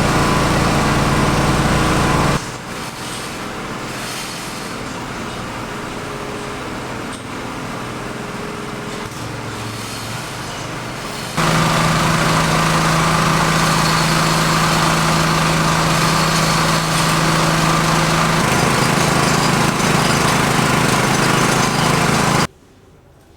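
Small engine running steadily with a pitched hum, heard in three stretches joined by abrupt cuts, the middle one quieter.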